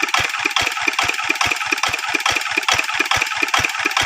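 Hand tractor (rice-field plough machine) engine running slowly and steadily, with an even beat of about five or six low firing pulses a second.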